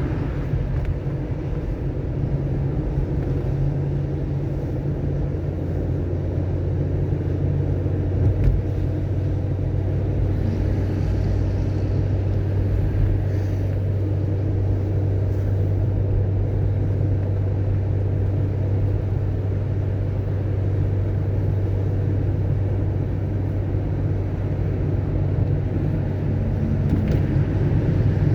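A car driving steadily: a constant low drone of engine and road noise, with a faint knock about eight seconds in.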